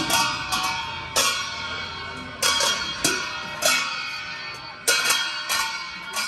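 Cymbals struck in a slow, uneven beat, each crash ringing out and fading before the next.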